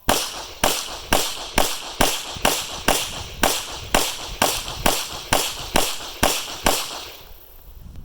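Beretta 92 9mm pistol fired one-handed in a fast string of about fifteen shots, roughly two a second, that stops about seven seconds in as the 15-round magazine runs empty.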